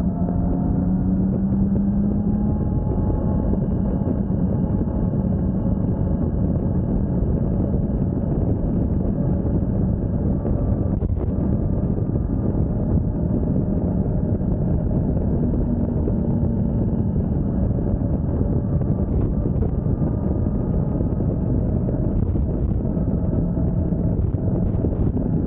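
Motorcycle riding at speed: a steady rush of wind over the camera microphone with the engine's hum underneath, its pitch drifting a little.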